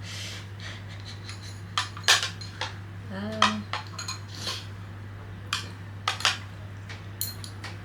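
Chopsticks clicking and tapping against a plate and bowl in irregular knocks while fumbling to pick up food.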